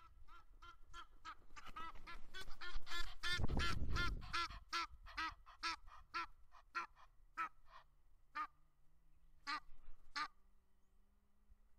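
Egyptian geese calling in a rapid series of harsh honks, about three to four a second, building to their loudest a few seconds in, then slowing to scattered single honks that stop near the end. A burst of low rumbling noise comes with the loudest calls.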